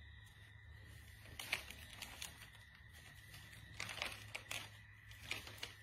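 A handful of faint, irregular crinkling rustles, the sharpest about a second and a half in, over a steady low hum and a thin steady high whine.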